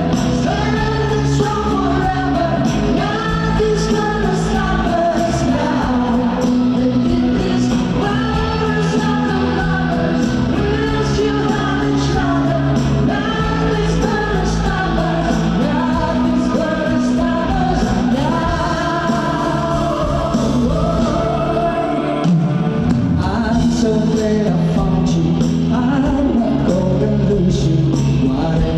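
Live pop-rock band performing, with sung vocals holding long notes over bass, drums and cymbals.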